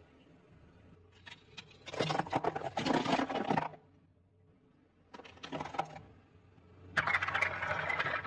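Brittle objects crunching and crackling as they are crushed under a car tyre, in three bursts of dense cracking.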